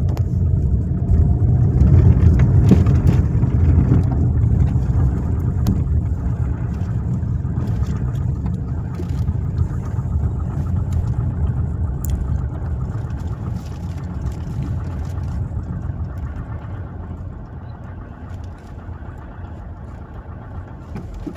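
2016 Toyota Corolla engine running with a rapid knocking noise, louder in the first few seconds and easing off toward the end. The knock persists even after the engine assembly was replaced.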